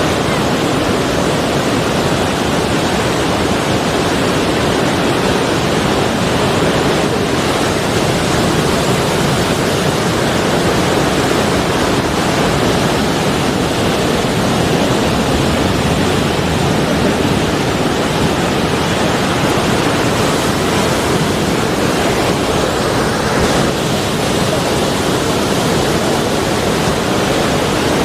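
Sea surf washing on a shore, heard as a steady, even rushing noise with no single breaker standing out.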